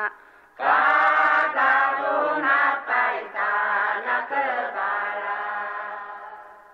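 A group of voices comes in together after a short pause, singing a chant-like song, then holds a last note that fades out near the end.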